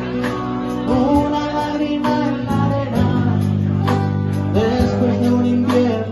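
Live acoustic band: a man singing over two strummed acoustic guitars with drums keeping a steady beat.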